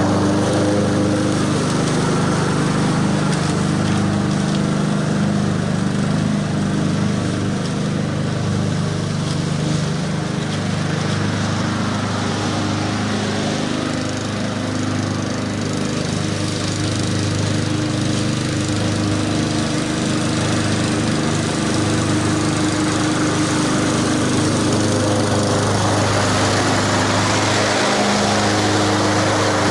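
Honda HRX217VKA walk-behind lawn mower's engine running steadily while cutting grass. It grows a little fainter around the middle as the mower moves away, then louder again near the end as it comes back.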